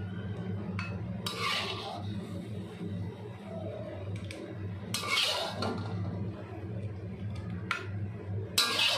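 Metal ladle scraping and clinking against a metal wok while chicken in soy sauce is scooped into a plastic container: three louder scrapes a few seconds apart, with lighter clicks between, over a steady low hum.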